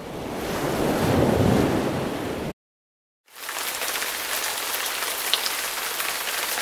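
Steady rushing noise, like rain or static, in two stretches: the first swells up and cuts off about two and a half seconds in, and the second starts abruptly under a second later, thinner and hissier.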